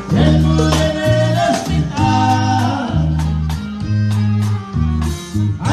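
Live norteño band playing a corrido: accordion over bajo sexto, bass and drums.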